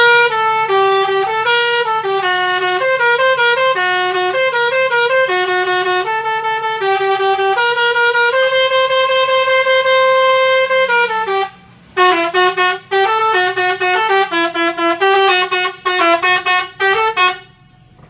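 Telolet basuri musical vehicle horn playing a melody of quick, stepping notes, with one long held note about halfway through and a few short breaks.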